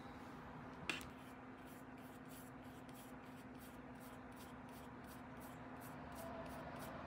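Paintbrush rubbing back and forth on paper, laying down gouache in quick scratchy strokes about three a second. A single sharp click about a second in, over a low steady hum.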